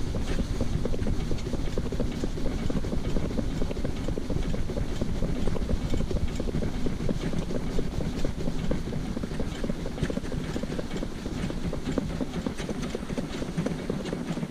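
Shetland pony's hooves clip-clopping on a tarmac road as it pulls a cart, a steady run of sharp hoofbeats over a low rumble.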